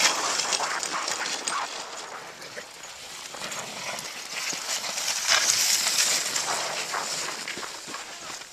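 Crunching and scraping on packed snow from a small wooden dogsled pulled by two dogs, with running paws and footsteps. It is loudest at the start, eases off, then grows louder again about halfway through.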